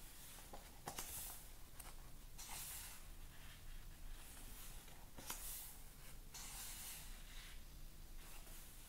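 Thick paper pages of a paperback colouring book being flipped by hand: a faint run of about five quick rustling swishes, one every second or two, a couple with a sharp snap of the page.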